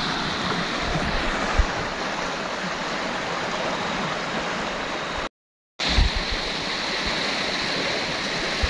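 Fast-flowing shallow stream rushing steadily over stones, with a couple of low thumps. The sound drops out for half a second a little past halfway.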